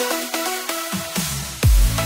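Electronic dance music: short synth notes over a beat whose bass drops out for about a second, then a rising sweep and heavy booming kick drums with a falling pitch come back in near the end.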